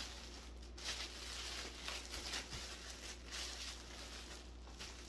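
Plastic bread bag crinkling and rustling as it is handled, in irregular bursts starting about a second in, over a faint steady hum.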